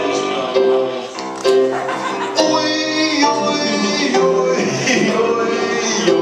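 Piano played live, with a man's voice singing into a microphone over it.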